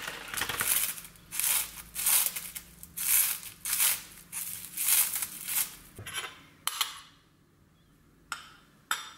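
Kitchen scissors snipping crisp sheets of dried seaweed (gim), a run of sharp cuts about twice a second for roughly six seconds. A few light clicks and knocks follow near the end.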